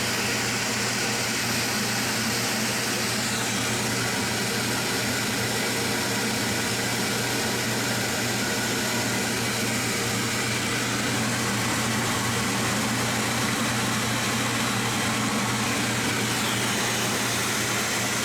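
Metal lathe running steadily through a single-point threading pass on a new riser shaft: a constant motor and gear hum under an even hiss.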